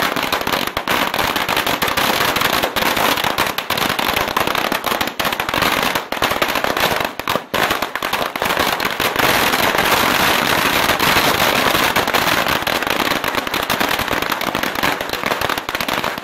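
A beehive firework rack going off: hundreds of small bottle rockets and firecrackers banging and crackling in a dense, unbroken barrage.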